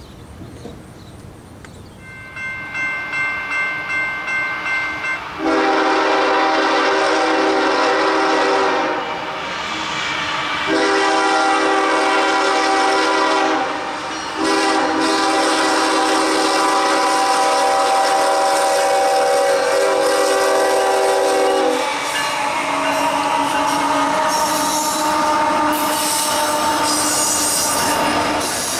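Freight train's diesel locomotive bell ringing, then its air horn blowing several long blasts. The horn sounds lower as the Union Pacific-led locomotives pass. Near the end, wheels squeal and clatter on the rails as the autorack cars roll by.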